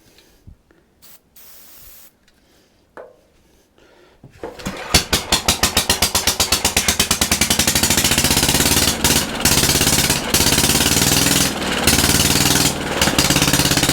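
Antique Briggs & Stratton engine catching about four seconds in and running loud with rapid, evenly spaced firing beats, fired by its own points and magneto ignition and running without its air filter fitted.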